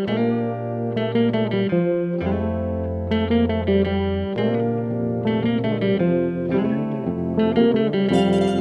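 Background music: plucked guitar melody over held bass notes.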